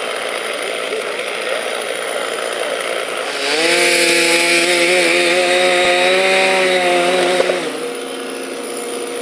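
Petrol chainsaw opened up to full throttle about three and a half seconds in, cutting into the base of a linden tree's trunk for about four seconds, then dropping back to idle.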